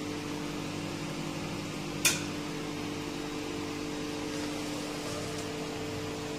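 Steady low machine hum with two steady tones, and a single sharp click about two seconds in.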